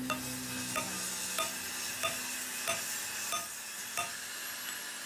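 Hammer striking a steel pin held in a heavy steel block: sharp metal clanks with a short ring, about one every two-thirds of a second, over a steady hiss.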